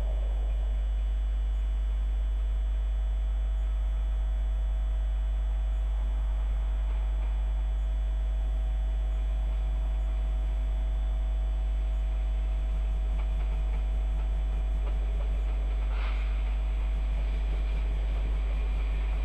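Steady low rumble and hum of an approaching locomotive-hauled passenger train. A faint, regular clatter of wheels over the rails comes in about two-thirds of the way through as the coaches draw near, with a brief higher-pitched sound near the end.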